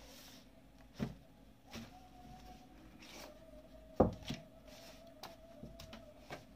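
Cardboard camera box being handled: the inner tray slid out of its sleeve, with a soft knock about a second in and a louder thump about four seconds in as the box parts are set down on the table, then a few light taps.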